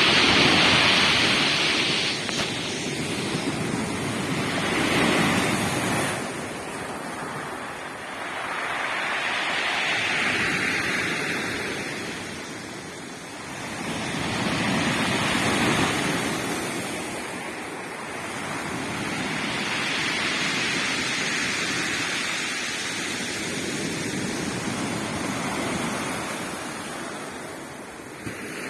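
Sea surf: waves breaking and washing up the shore, the rush swelling and falling back about every five seconds.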